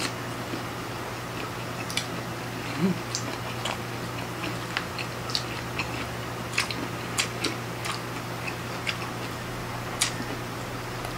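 Close-up eating sounds of people chewing octopus and shrimp by hand, with irregular wet mouth clicks and smacks, over a steady low hum.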